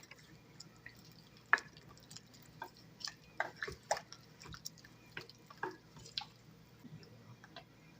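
Soup being stirred with a ladle in a pot: faint, irregular light clinks and small liquid drips and splashes.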